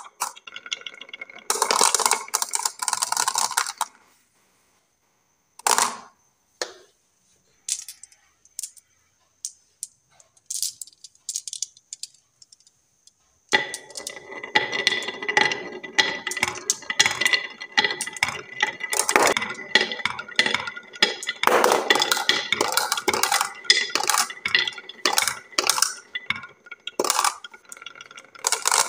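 Marbles rolling down HABA wooden wavy-groove marble-run slopes, clicking and clattering against the wood and each other. After a few scattered clicks and a quiet stretch, a whole handful is let go about 13 seconds in and a continuous rattle of many marbles rolling and knocking follows.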